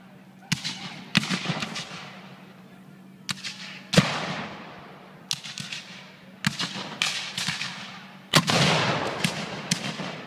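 Black-powder gunfire: scattered musket shots and ragged volleys mixed with cannon fire, each report echoing. The sharpest report comes about four seconds in; a longer crackling volley follows about eight seconds in.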